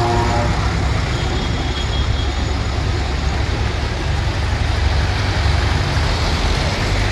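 Engines of vintage farm tractors running as the tractors drive slowly past one after another, a steady low rumble.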